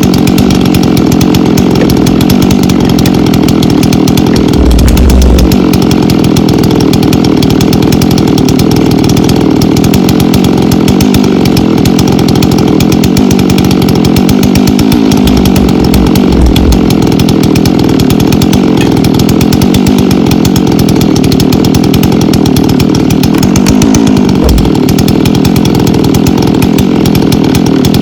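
Two-stroke chainsaw running loud and steady without a break, cutting firewood, with a few short low thumps along the way.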